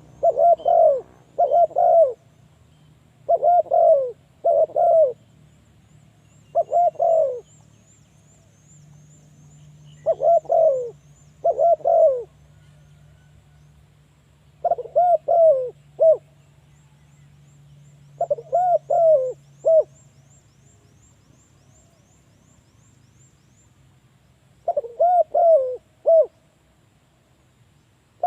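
Spotted dove cooing: short phrases of two to four hooting notes, repeated every few seconds with pauses in between. A faint high chirping trill runs behind it for part of the time.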